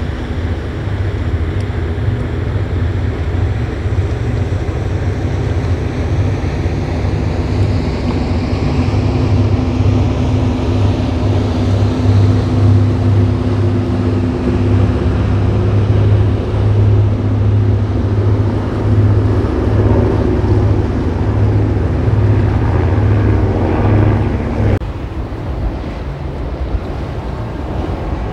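Large express cruiser running at speed past the shore, a steady low engine drone over the rush of its wake. It is loudest as the boat passes, with wind on the microphone. Near the end the sound drops suddenly to a quieter boat running.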